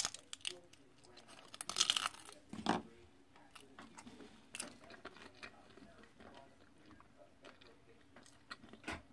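Crunchy bites and chewing of a crisp thin-crust pizza slice: loud crunches at the start and about two seconds in, then softer chewing with another crunch near the end.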